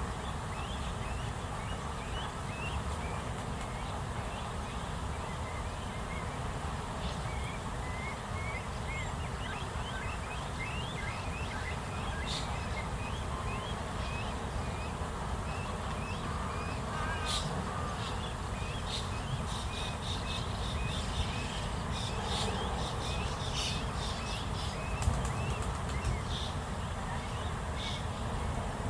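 Spot-billed duck ducklings peeping, a constant stream of short high peeps over a steady background hum, with sharper high chirps joining in during the second half.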